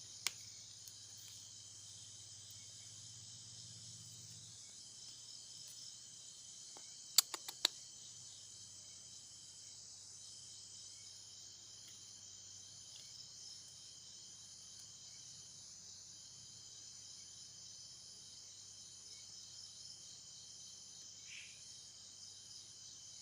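Faint, steady chorus of crickets: a high pulsing trill, with a thinner single tone that stops and starts every few seconds. Three sharp clicks about seven seconds in.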